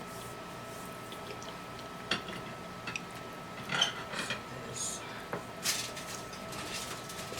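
Dishes and cutlery clinking and knocking in a handful of separate sharp strikes, with a faint steady high tone underneath.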